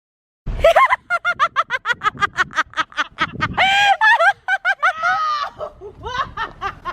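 Hard, high-pitched laughter in quick "ha-ha-ha" bursts, about six or seven a second, starting about half a second in, with a longer squeal near the middle.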